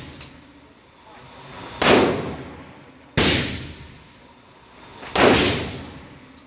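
Three gunshots on a shooting range, each a sharp crack followed by a long echoing decay, the shots about one and a half to two seconds apart.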